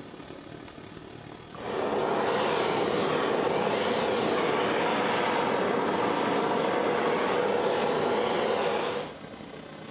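Hand-held gas torch burning steadily against a hand-forged steel skillet as the pan is heated. The flame's steady rush starts suddenly about a second and a half in and cuts off shortly before the end.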